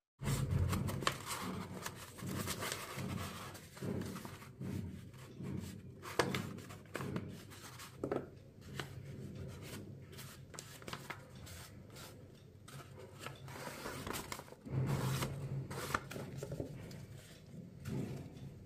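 Paper and a cardboard tube being handled: irregular rustling, rubbing and small taps as hands wrap and smooth the paper and pull out a sheet of paper towel.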